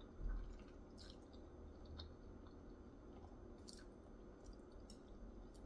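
Faint close-up chewing of spicy instant ramen noodles, with small scattered mouth clicks. There is a soft low thump about a quarter second in.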